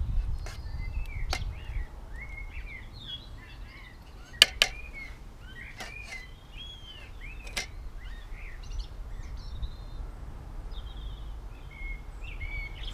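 Small birds chirping repeatedly, with a few sharp metallic clicks of a spoon against the aluminium camping pan; the loudest pair of clicks comes about four and a half seconds in.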